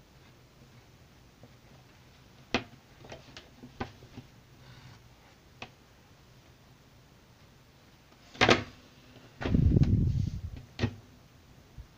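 Handling sounds on a desk: a few light taps and clicks, then a louder knock followed by about a second of low rubbing and rumbling, and one more knock, as the drawing paper and camera are moved.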